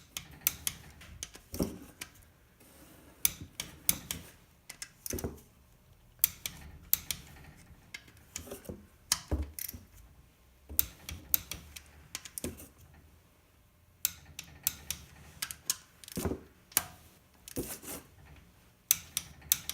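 Torque wrench ratcheting and clicking on the rocker arm bolts of an LQ4 V8 as they are tightened to 22 foot-pounds. The sound is a run of irregular sharp metallic clicks, some in quick clusters, with short pauses between bolts.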